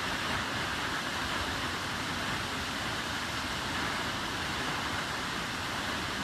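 A waterfall's steady rush of falling water, an even noise with no breaks.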